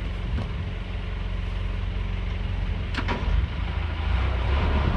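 A steel sailing barge's inboard engine running at low speed during a docking manoeuvre, its low rumble growing louder about three to four seconds in as it is throttled up. A single short knock near the middle.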